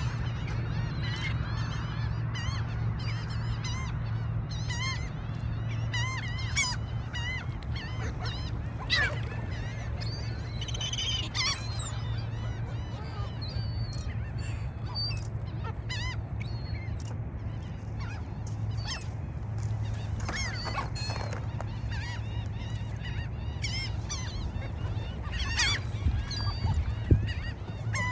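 A flock of gulls calling, many short rising-and-falling cries overlapping one another, over a steady low hum.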